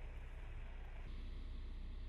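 Faint outdoor ambience of wind and passing traffic on a snowy highway: a steady low rumble with a hiss. The hiss drops away about a second in, leaving only the low rumble.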